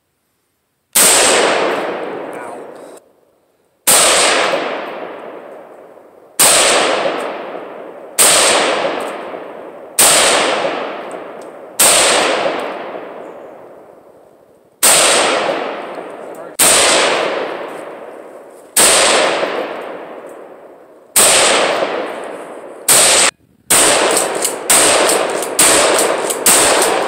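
Gunshots from rifles and a pump shotgun. About one shot every two seconds, each trailing off in a long fading ring, then a quicker run of shots near the end.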